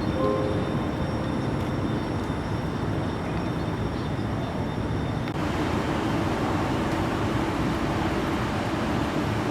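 Steady outdoor background noise with a low rumble, like distant vehicle traffic. Its tone shifts slightly about five seconds in.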